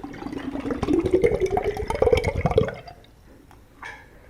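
Liquid poured into a container, gurgling, its pitch rising steadily as the vessel fills. The pour stops abruptly about two and a half seconds in.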